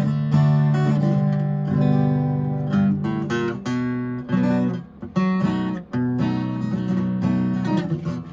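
Steel-string dreadnought acoustic guitar, a kit-built copy of a 1937 Martin D-28, being strummed in ringing chords, with a few brief breaks between chords near the middle.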